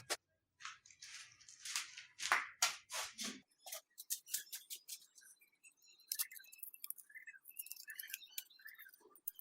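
Rapid clicks, taps and rustles of small cage parts and accessories being handled for about three and a half seconds, followed by sparser, fainter high clicks and small chirp-like sounds.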